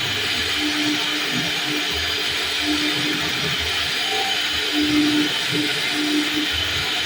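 CNC wood router carving wood: a steady whir of the spindle and cutter, with a low hum that drops out and returns every second or so as the cut changes.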